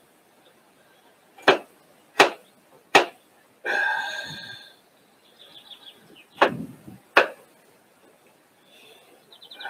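Kitchen knife chopping on a cutting board in five separate sharp strikes, in two groups of three and two. Between them, birds chirp and trill, loudest about four seconds in.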